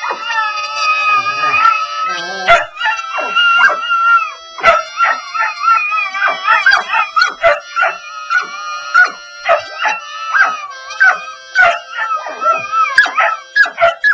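Dogs howling together: wavering yowls that bend up and down in pitch, broken by short yips, over a few steady held musical notes.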